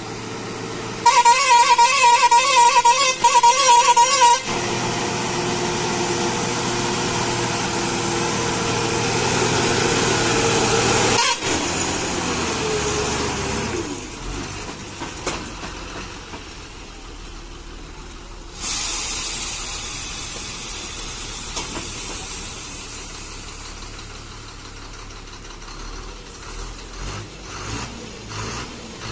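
A loud warbling horn sounds for about three seconds. Then a steady hissing noise with a low hum runs on. The hum cuts off sharply about halfway through, and a second burst of hiss starts after that.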